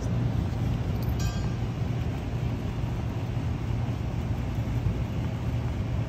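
Carrier rooftop package unit running: compressor and condenser fan making a steady drone with a strong low hum, while refrigerant is being charged. A brief high chirp sounds about a second in.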